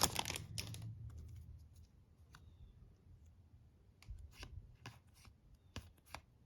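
Hockey trading cards being handled and shuffled from one to the next: a light rustle fading out over the first second, then a few soft clicks and flicks of card against card about four to six seconds in.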